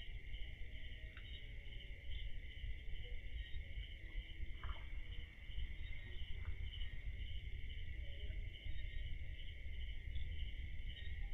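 Crickets chirping in a steady night chorus, with a low rumble underneath.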